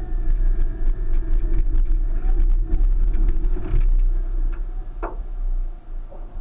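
1999 Subaru Forester's flat-four engine running under load as the car crawls up a rock step, heard from inside the cabin with a heavy low rumble. Scattered clicks and knocks come through, with a sharper knock about five seconds in, and the engine eases off near the end.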